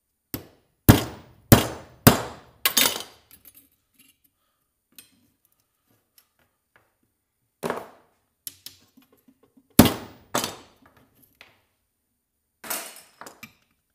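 Hammer blows on scrap copper, knocking at a stuck part to get it off. Five quick, sharp strikes come in the first three seconds, then after a pause more strikes follow, spaced about a second apart.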